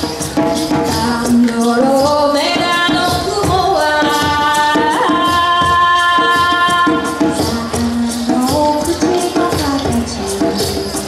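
Live music: a woman's voice singing a melody, with a long held note in the middle, over djembe hand drums and a shaker keeping a steady beat.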